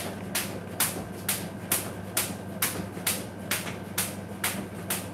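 Jump rope slapping a tiled floor on each turn during steady skipping, a sharp regular click a little over twice a second.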